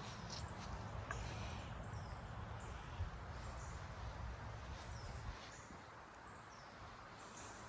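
Birds chirping faintly, short high notes that sweep downward, repeating every second or so over a low outdoor rumble, with a single knock about three seconds in.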